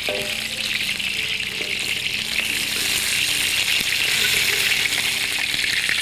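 Hot oil in a wok sizzling and spitting around a whole chicken being deep-fried, with the heat just turned off. It is a steady, high hiss that grows a little louder toward the end as the chicken is turned and lifted with tongs.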